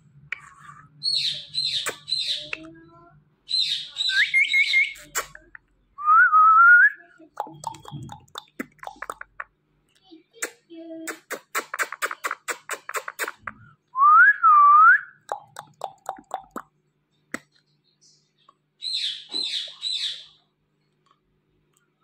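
Rising whistled notes, three loud ones, traded with bursts of quick high chirps between a man and a ring-necked parakeet. Midway there is a rapid run of sharp clicks lasting a few seconds.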